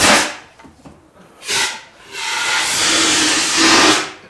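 Cotton wool igniting in oxygen: a sudden bang right away, another about a second and a half later, then a steady rushing hiss for about two seconds that stops abruptly.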